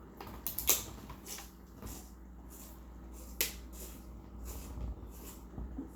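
Sharp clicks and taps of an aluminium beer can being handled as it is opened for shotgunning. The loudest click comes about 0.7 s in and another strong one about 3.4 s in.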